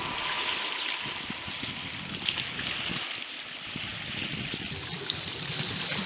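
Sea water washing and lapping in small waves, a steady hiss that grows brighter about three-quarters of the way through.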